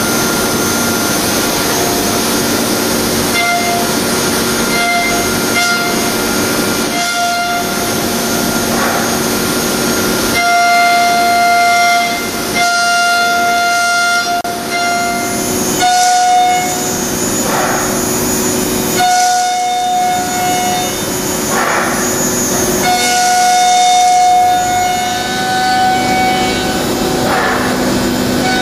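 HPM 1000U five-axis milling machine cutting metal: a steady high whine from the spinning end mill over a hiss of coolant. The whine holds one pitch for a few seconds at a time, breaking off and returning slightly shifted in pitch between cutting passes.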